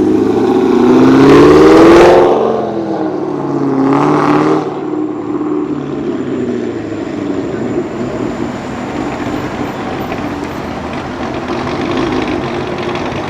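A sports car's engine revving hard as it accelerates, climbing in pitch to its loudest about two seconds in, then dropping. A second shorter rev follows about four seconds in, and then the engine fades into steady road noise.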